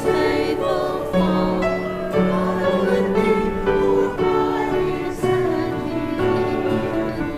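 Congregation and choir singing a hymn with instrumental accompaniment.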